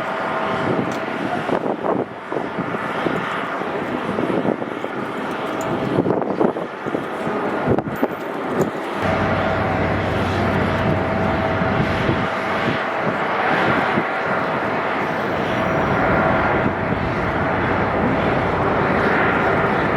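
Jet airliner engines running as it passes: a steady whine over a broad roar, with a low rumble that comes in about halfway through and holds.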